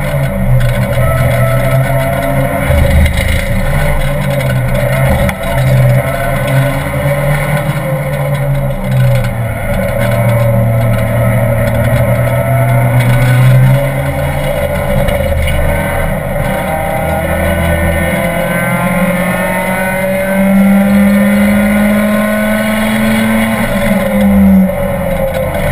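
Renault Twingo Cup race car's engine heard from inside the stripped cabin at racing speed, revving up and down as the driver accelerates, lifts and changes gear, over steady wind and road noise.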